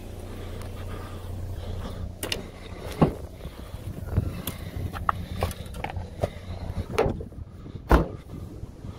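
Sharp knocks and clatters as a person walks around a parked car on gravel, the loudest about three, seven and eight seconds in, over a low, steady rumble.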